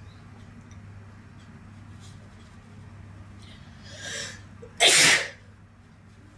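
A woman sneezing once, loud and short, about five seconds in, after a breathy in-breath a second before.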